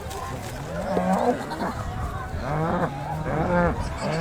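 Cattle mooing: a run of short calls, one after another, each rising and falling in pitch.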